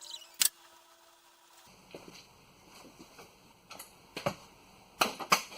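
A few sharp clicks and knocks, the loudest near the end, over a faint steady hum that stops about a second and a half in.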